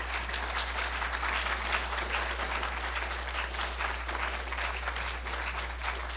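Audience applauding: many people clapping together in a dense, steady round of applause at the close of a talk, over a low steady hum.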